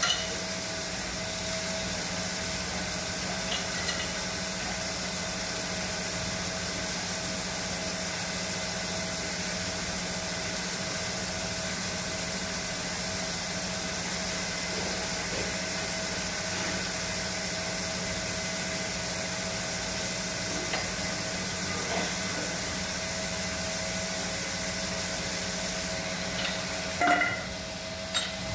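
A metalworking machine running steadily: a constant hum with a steady higher tone over an even hiss, and a few short knocks near the end.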